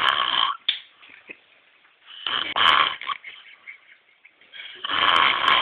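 A drunk man snoring loudly in his sleep: three heavy snores about two and a half seconds apart, each lasting under a second, with quiet breathing between them.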